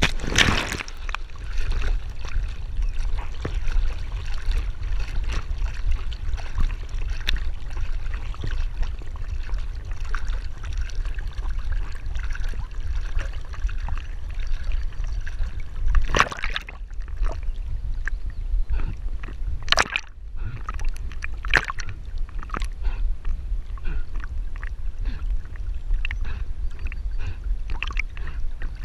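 A dog jumping into a pond with a big splash, then swimming: water sloshing and lapping right at a camera on its back, over a steady low rumble, with a few sharper splashes partway through.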